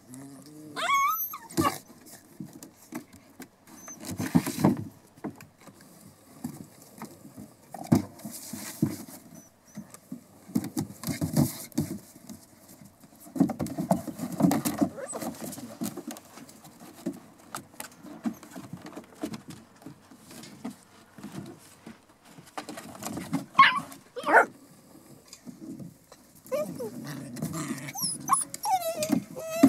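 A litter of seven-week-old Border Collie puppies playing: low play-growling and scuffling, with a few short high whines about a second in, about two-thirds through and near the end.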